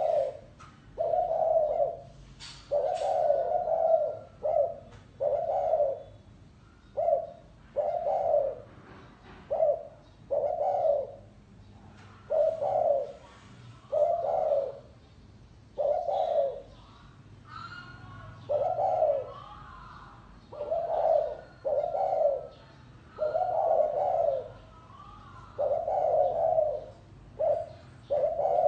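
Spotted dove cooing over and over: low, hoarse coos, about one a second, in short and longer notes grouped into repeated phrases. Faint twittering from other small birds sounds between the coos.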